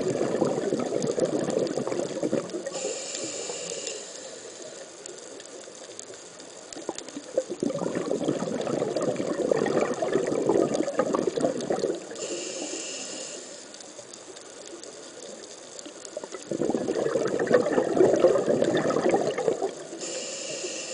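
Scuba diver's open-circuit regulator breathing, heard underwater: three long bubbling exhalations of about four seconds each, each followed by a short hissing inhalation, one breath roughly every nine seconds.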